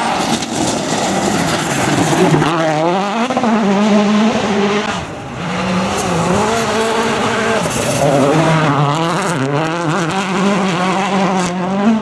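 Citroën DS3 WRC rally car's 1.6-litre turbocharged four-cylinder engine driven hard, its pitch rising and falling again and again with throttle and gear changes. About five seconds in it briefly drops away before picking up again.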